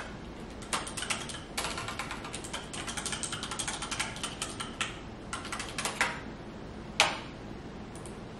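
Typing on a computer keyboard: a quick run of key clicks for about five seconds, then one louder single click about seven seconds in.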